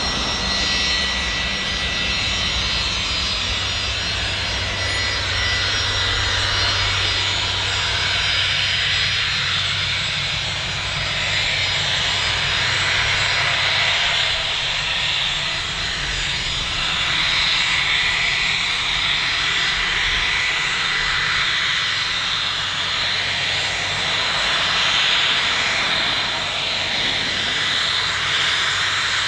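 1988 Gulfstream IV's twin Rolls-Royce Tay turbofans running at taxi power as the jet taxis: a steady high jet whine over a rushing hiss.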